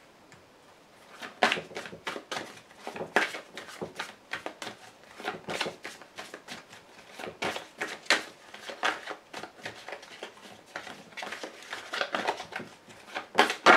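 A deck of Grand Jeu Lenormand cards being shuffled by hand: after about a second of quiet, an irregular run of quick card snaps and slides.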